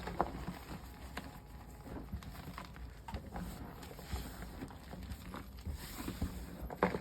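Gym chalk slabs sandwiched with a cornstarch spread, squeezed and crumbled by hand: irregular soft crunches and crisp crackles, with a cluster of sharper crunches near the end.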